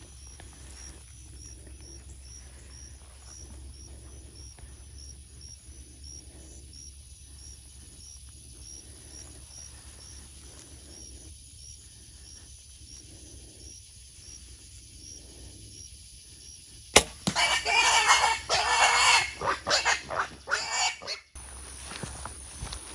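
Faint outdoor background with a high chirp repeating about twice a second, then a sharp crack from the compound bow's shot about three-quarters of the way in, followed by several seconds of loud commotion and squealing as the wild hogs bolt.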